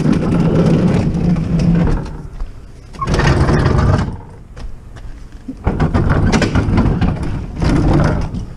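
A refrigerator being shoved and dragged over the ground in four rough scraping pushes, each one to two seconds long.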